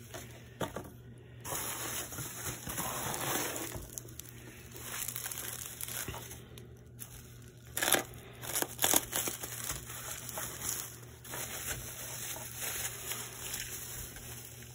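Handling noise as a small transistor radio is picked up and turned over: irregular rustling and crinkling, with a few sharp clicks about eight to nine seconds in.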